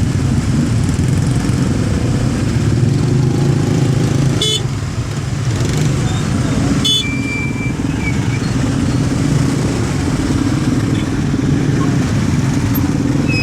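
A motor vehicle engine running steadily throughout. Two sharp clicks come about four and a half and seven seconds in, and a short high-pitched tone sounds just after the second click and again near the end.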